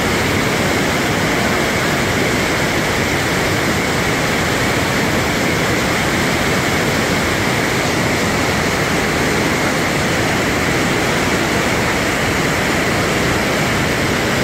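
Rhine Falls, a large river waterfall, rushing with a steady, unbroken noise of falling and churning white water.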